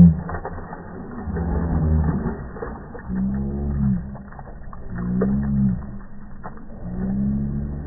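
A bulldog snoring: a low, pitched snore about every two seconds.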